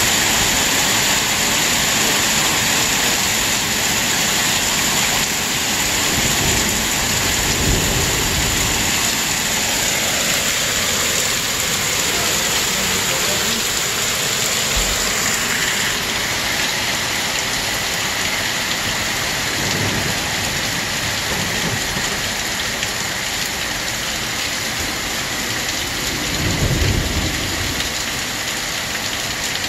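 Hail falling steadily on pavement and a yard, a dense, even hiss. A low rumble comes twice, about a quarter of the way in and again near the end.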